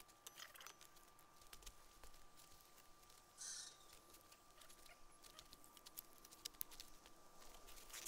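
Near silence with faint, scattered crackles from a small twig campfire, a brief rustle about three and a half seconds in, and a faint steady high-pitched tone.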